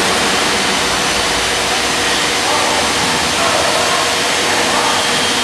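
Vacuum lifting rig's pump running steadily, a loud even rush of noise with a constant hum, holding the vacuum for a precast concrete lift.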